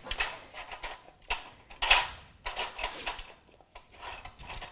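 Plastic covers of a Dog-It Mind Games puzzle toy scraping and clacking in their track as a dog nudges them with its nose: irregular clicks and rattles, with a few louder clacks.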